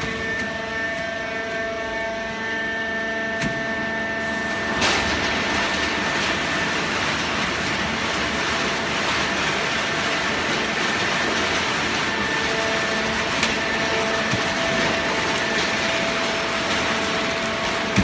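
Fully automatic waste paper baler running: a steady machine whine, joined about five seconds in by a louder rushing noise after a sharp click, which then holds steady.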